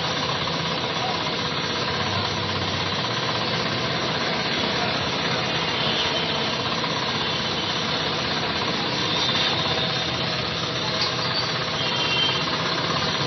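A motor running with a steady, even drone.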